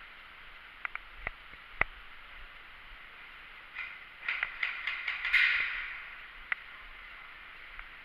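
Airsoft gunfire in a close-quarters game: scattered sharp pops and snaps, single ones early on, then a quick run of several about four to five seconds in, the loudest near the middle of that run.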